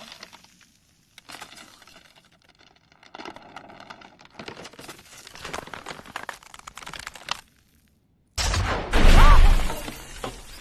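Cracking and breaking sounds, scattered sharp crackles growing denser. About eight seconds in they give way to a loud crash with a heavy low rumble, which then dies down.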